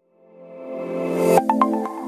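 Background music fading in from silence: a sustained synthesizer chord swells and cuts off sharply about a second and a half in, where short struck melodic notes begin.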